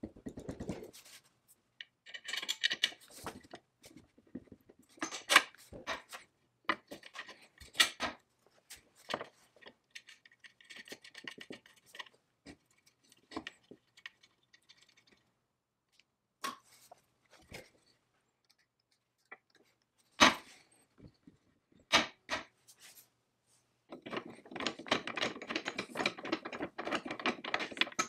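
Cast-iron and steel parts of a 1950s Foley Automatic Filer saw sharpener being handled and fitted together by hand: scattered metal clicks and knocks with short pauses between them. Near the end comes a dense run of fast rattling clicks as a knurled adjustment knob is turned on its threaded rod.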